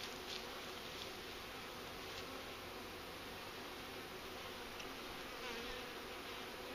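Honeybees from a newly installed package buzzing steadily around an open hive, a dense, even hum of many bees.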